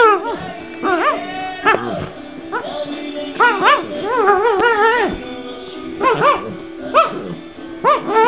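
Dog giving a string of short, high yowling whines that rise and fall in pitch, roughly one a second and some in quick clusters, the playful 'talking' noises of a dog at play.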